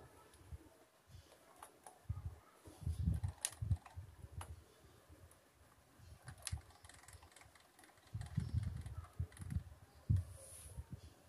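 Hands working a push button and knob on a board: a few sharp clicks, and two stretches of low, uneven knocking and rumbling, about two to four seconds in and again about eight to ten seconds in.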